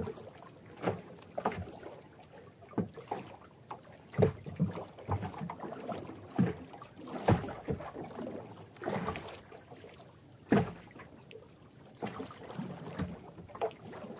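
Small outrigger boat rocking on choppy water, waves slapping and knocking against the hull in irregular splashes, about one every second or two.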